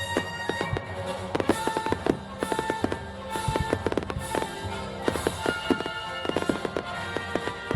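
Fireworks bursting in many sharp bangs and pops in quick succession, over music playing with held notes.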